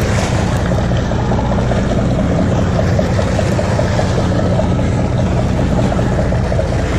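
A sportfishing boat's engine running with a steady low hum, under water and wind noise, while a conventional fishing reel is cranked in to bring a fish up.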